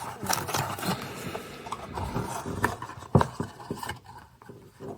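Cardboard display box being handled and folded open: rubbing and scraping with scattered light taps, a sharper knock about three seconds in, then quieter near the end.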